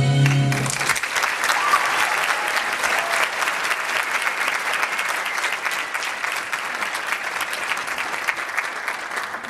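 The last held chord of the dance music stops under a second in, and a theatre audience breaks into steady applause.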